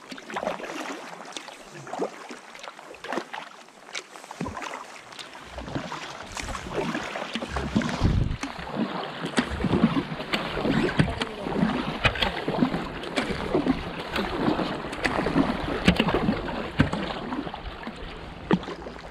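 Kayak paddle strokes: the blades dip and splash in the water, with drips and small clicks in an irregular pattern. They get louder about six seconds in.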